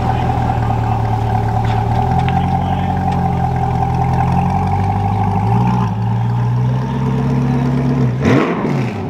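C8 Corvette's V8 idling, heard close at the exhaust, with the idle pitch shifting slightly a couple of times. Near the end the engine note rises and falls briefly.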